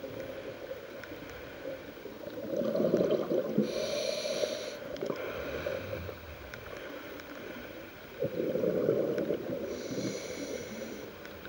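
Scuba diver breathing through a regulator: a hissing inhale and a gurgling rush of exhaled bubbles, two breath cycles in a row.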